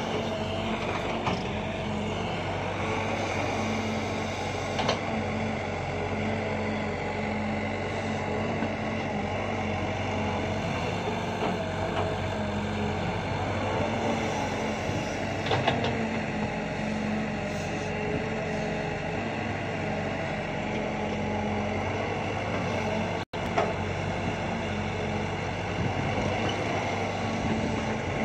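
Sumitomo S265 hydraulic excavator's diesel engine running steadily under working load as it digs and moves soil, with a few short knocks from the machine. The sound cuts out for an instant about three-quarters of the way through.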